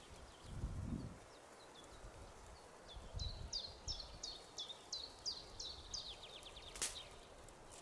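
A songbird singing a run of about a dozen short, high, falling notes, ending in a quicker run of them. Soft low rumbles come near the start, and one sharp click sounds near the end.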